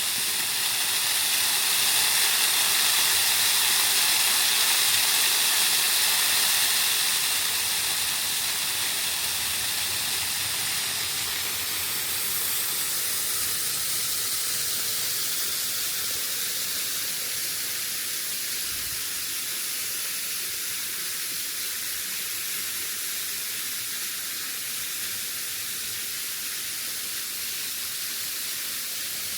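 Waterfall rushing: a steady hiss of falling water, a little louder in the first few seconds and then easing slightly.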